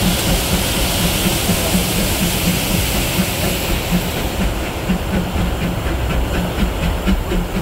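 Disneyland Railroad train hauled by the steam locomotive E.P. Ripley, heard from an open passenger car: a steady rumble of wheels on track with a hiss that fades about halfway through, then a quick, even ticking.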